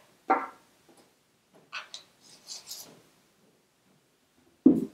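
Handling sounds of a cordless rotary tool and its plastic nose cap: a short squeak just after the start, faint rubbing and clicks in the middle, then a sharp knock near the end as the tool is set down on the workbench.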